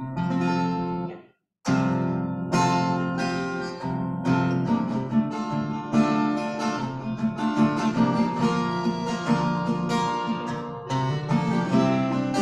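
Acoustic guitar strummed as a song begins: a first chord sounds and stops about a second in, then, after a short pause, steady rhythmic strumming runs on.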